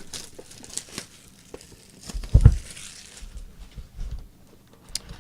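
Trading card packaging being opened by hand: plastic wrap crinkling and tearing, with one dull thump about two and a half seconds in.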